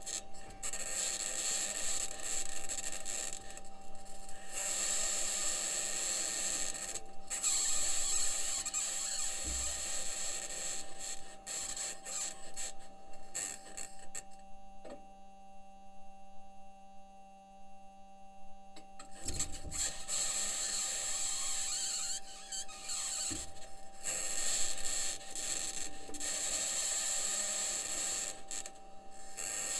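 Perseverance Mars rover driving: its aluminium wheels scraping, squealing and rattling over rock, with a steady low hum and a steady higher tone underneath. About halfway through the grinding drops away for a few seconds, leaving mostly the hum, then comes back.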